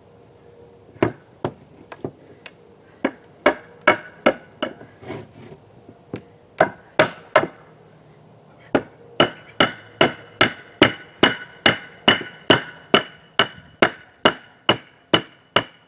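Claw hammer driving nails into an oak pallet-wood trim board: scattered blows at first, a short pause about halfway, then a steady run of about two and a half blows a second, each with a short metallic ring.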